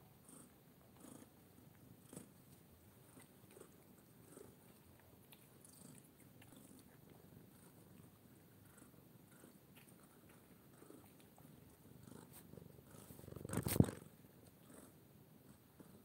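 Domestic tabby cat purring faintly, with scattered small clicks. A short loud rustling thump is heard near the end.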